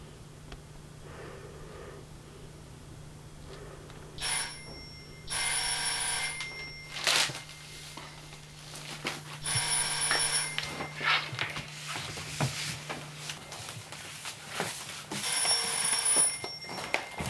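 Landline telephone bell ringing: a brief first burst about four seconds in, then three rings of about a second each, a few seconds apart.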